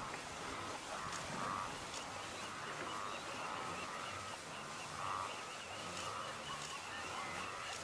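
A wildebeest herd calling in a continuous chorus of nasal honking grunts, many animals overlapping.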